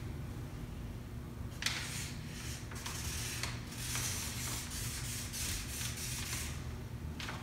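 Marker pen scratching and rubbing across paper on a wall in a series of short strokes, the sharpest about a second and a half in and near the end, over a steady low hum.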